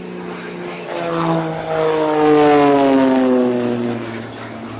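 Propeller aircraft flying past, loud, its engine note falling steadily in pitch as it passes and moves away.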